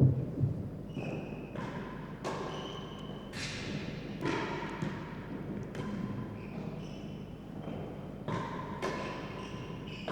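A real tennis rally: about a dozen sharp knocks of rackets striking the solid ball and the ball hitting the court's walls and penthouse roof, roughly one a second, each echoing in the enclosed court.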